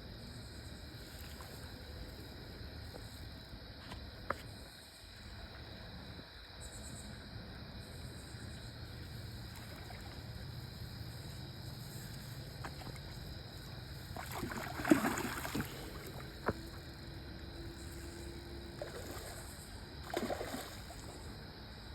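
Insects chirping in a steady pulsing chorus, with a sharp knock about four seconds in and a brief louder burst of rustling or splashing a little past the middle, followed by another knock and a shorter rustle near the end.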